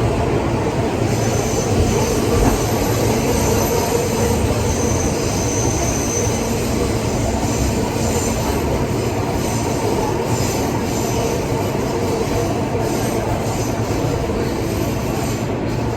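New York City subway train running, heard from inside the car: a steady rumble of steel wheels on the rails, with a thin high wheel squeal that comes in about a second in and keeps returning.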